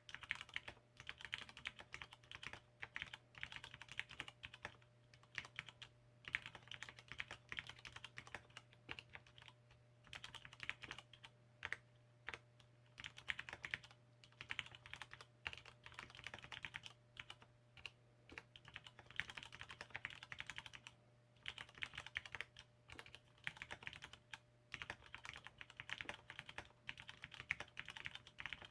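Typing on an ABKO AR87 aluminium mechanical keyboard with lubed Cherry MX Red linear switches and lubed stabilizers. Quick runs of keystroke clacks come in bursts of a few seconds, with brief pauses between them.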